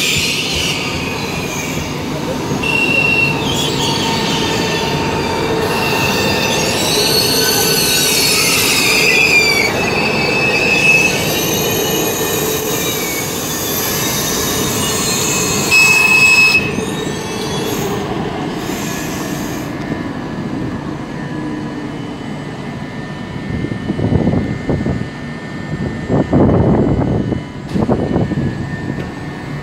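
PKP Intercity ED250 Pendolino electric train running along the platform close by, with steady rumbling and its wheels squealing in high, shifting tones through the first half or so.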